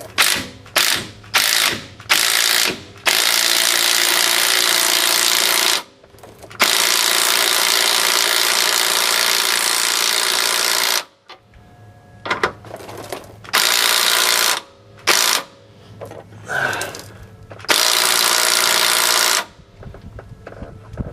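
Impact wrench hammering on the 18 mm nut at the bottom of a sway bar end link, in a series of bursts: several short ones, then long runs of a few seconds each, stopping and starting again.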